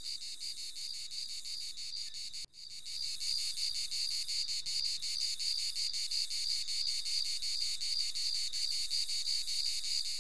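Insects chirring: a continuous high-pitched trill with fast, even pulsing, broken off for an instant about two and a half seconds in.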